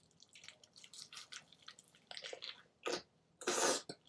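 A person biting into and chewing a double bacon cheeseburger: small wet clicks and smacks of the mouth, with one louder, short rush of noise about three and a half seconds in.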